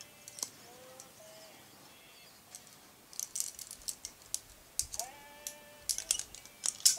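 Metal climbing gear hanging from a lead climber's harness clinking and rattling as he moves on the wall. It comes in quick, irregular clicks that start about three seconds in.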